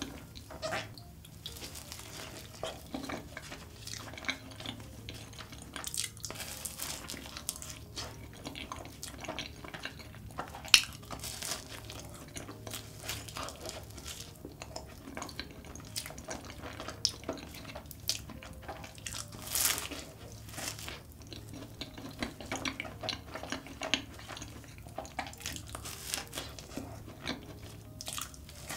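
Close-miked eating of a large choux cream puff: bites into the crisp pastry shell and soft, wet chewing of the cream filling, with irregular mouth clicks and crackles and one sharp click about eleven seconds in.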